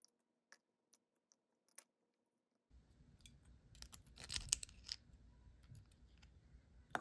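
Small clicks and scrapes of metal tweezers working at a small ball bearing in the plastic side housing of an Ugly Stik GX2 spinning reel, strongest about four to five seconds in. A few faint ticks come before.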